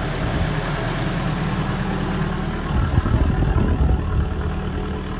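Diesel-driven hydraulic rig heater running steadily, its small Caterpillar C4 engine humming under the rush of its hot-air blower. A brief low rumble comes about three seconds in.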